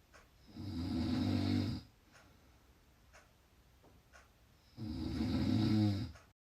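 Loud snoring: two long snores about four seconds apart, each lasting about a second and a half, before the sound cuts off abruptly to dead silence near the end.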